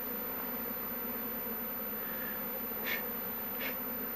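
Honeybees buzzing around an opened hive, a steady hum, agitated by the hive being worked. Two faint clicks about three seconds in.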